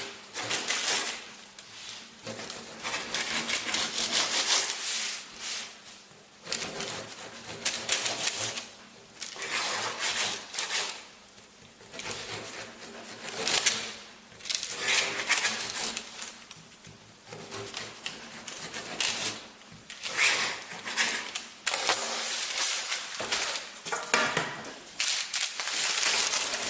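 Sharp knife chopping cherry flapjack: quick runs of cutting strokes and taps of the blade coming down, with short pauses between runs every few seconds.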